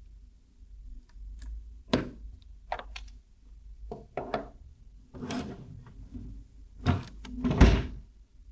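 A string of irregular knocks and clatters, a few single and a few in quick pairs, the loudest near the end.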